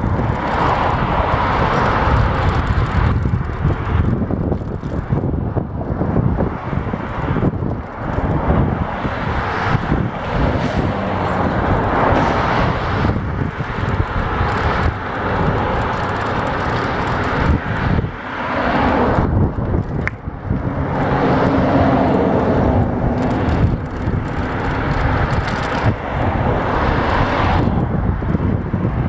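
Wind buffeting the microphone and road noise from a bicycle ride along a street, with traffic passing on the road alongside.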